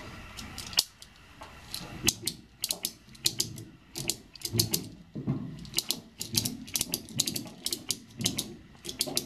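Ratchet strap buckle being cranked to pull a nylon tie-down strap tight: repeated runs of sharp ratchet clicks, beginning about two seconds in.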